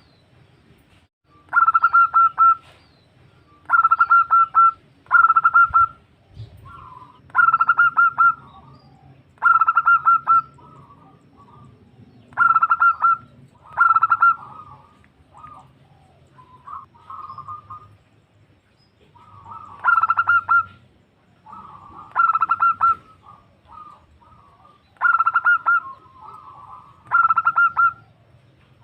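Female zebda dove (perkutut) calling a male: about a dozen short bursts of rapid stuttering cooing notes, one every one to three seconds, with softer notes between.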